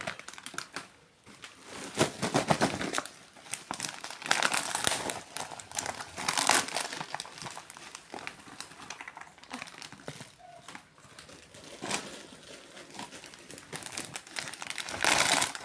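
Plastic snack-packet wrappers crinkling and rustling in repeated bursts as they are handled and opened.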